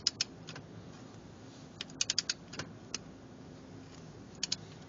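Click-type torque wrench's ratchet head clicking as a lug nut is run down with short strokes: a couple of clicks at the start, a quick run of four about two seconds in, a few single ones, and a pair near the end.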